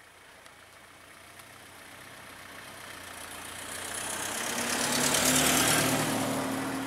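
A motor vehicle passing close by: its engine and tyre noise grow steadily louder, are loudest about five seconds in, then begin to fade, with a steady engine note.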